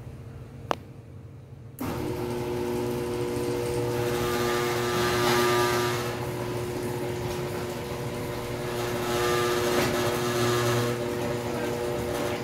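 A click, then about two seconds in an Overhead Door model 100A garage door opener starts and runs steadily, raising the door with a steady hum under a rough vibrating rattle. The opener had been running quietly and has suddenly started vibrating like crazy, for a reason the owner can't explain.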